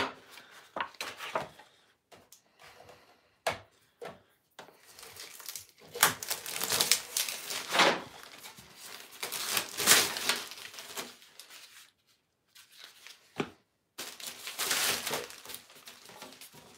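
Packaging wrapper crinkling and rustling in several spells as a snowboard is unwrapped and handled, with a few light knocks between.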